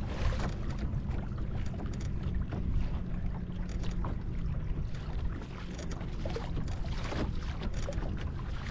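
Wind buffeting the microphone outdoors, a dense low rumble with a faint steady drone underneath that fades about halfway through.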